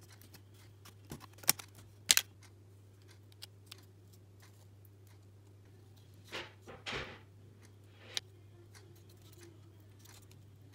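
Thin laser-cut plywood puzzle pieces being snapped out of their sheet and handled. There are two sharp snaps about a second and a half and two seconds in, then two short scrapes of wood on wood a little past six seconds, and a lighter click near eight seconds.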